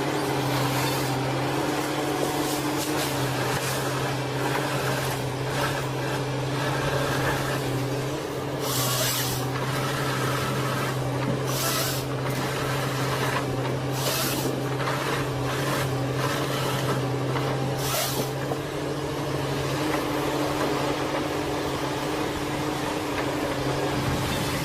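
Machinery running with a steady hum, broken by short hissing bursts about 9, 12, 14 and 18 seconds in.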